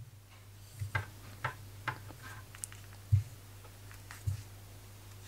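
A handful of faint, irregular light clicks from a crochet hook working a decrease stitch in yarn, over a steady low hum.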